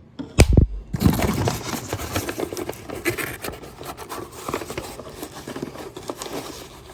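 Handling noise as a smoke alarm is worked out of its packaging by hand: continuous rubbing and scraping with small clicks, and one thump about half a second in.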